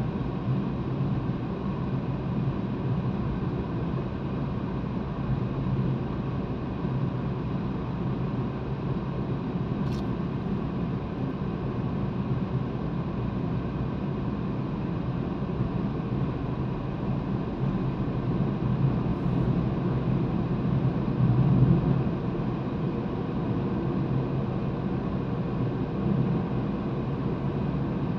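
Steady road and engine noise inside a car's cabin while it drives at road speed, a low rumble that swells slightly about two-thirds of the way through. A single short click about ten seconds in.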